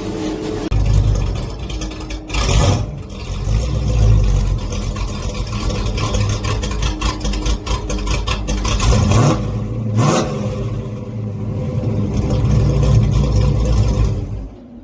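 Pontiac Trans Am engine running as the car moves under its own power, the revs rising and falling, with two short louder rushes of noise about two and a half and ten seconds in.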